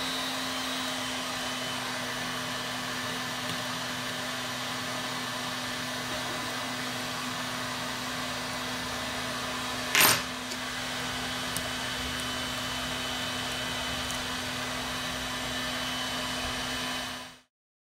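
A steady machine whir with a low hum, like a small blower or fan motor running, broken by one sharp click about ten seconds in; it cuts off suddenly near the end.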